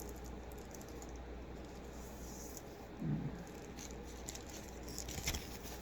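Soft handling noises of a tablet and its cover being turned over: scattered light taps, clicks and rustles, busiest near the end, with a brief low hum about three seconds in.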